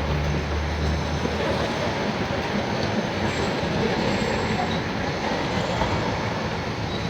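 Steady rumble and hiss of a passing train, with a faint thin high squeal around the middle.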